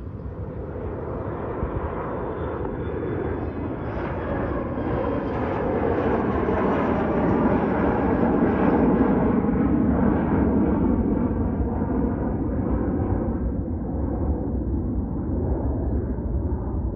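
Jet engine noise from a departing regional jet with two rear-mounted turbofans at takeoff power. The rumble swells steadily to its loudest about halfway through, then slowly fades and dulls as the jet climbs away.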